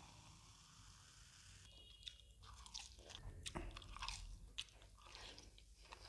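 A person chewing a mouthful of mutton boti curry and puri: faint, irregular wet mouth clicks, mostly in the second half.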